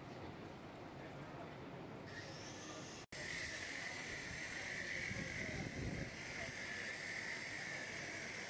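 Steady background hiss with a faint murmur. About three seconds in the sound drops out for a moment at an edit cut, and after that a steady high-pitched hiss is louder.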